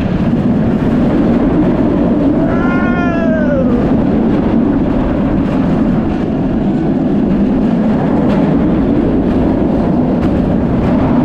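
Steady loud wind noise buffeting the microphone. About three seconds in, one short wailing call falls in pitch.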